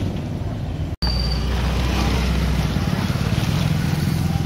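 Steady low rumble of wind and street traffic, with a plastic tarpaulin rustling as it is pulled back from the load. The sound drops out for an instant about a second in.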